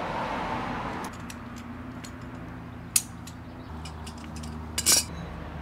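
Scattered sharp clicks and taps from a hand tool and a cable gland being worked onto armoured cable. One clear click comes about three seconds in, and a louder quick cluster of clicks comes near the end.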